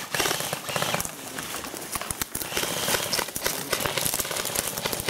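Airsoft rifles firing in bursts: a fast, irregular clicking rattle.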